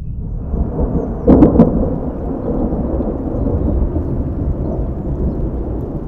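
Thunder with the bass boosted: two sharp cracks in quick succession about a second and a half in, then a long, deep rumble.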